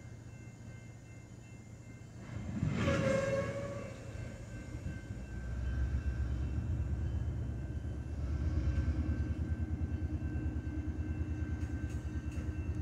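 Short train horn blast about three seconds in, followed by the low, pulsing rumble of a freight train of tank cars moving along the track, growing louder from about five seconds in.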